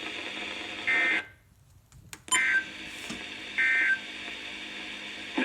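Emergency Alert System end-of-message data bursts: three short, buzzy two-tone bleats over a steady radio hiss, signalling the end of the alert. The sound drops out for about a second after the first burst.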